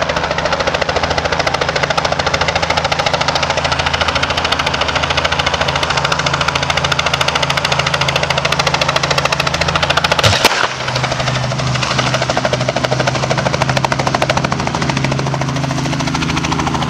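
Robinson R44 helicopter hovering close by and settling onto the ground, its two-blade main rotor chopping in a fast, even beat over the engine's running. About ten seconds in there is a brief louder surge, after which the sound turns steadier.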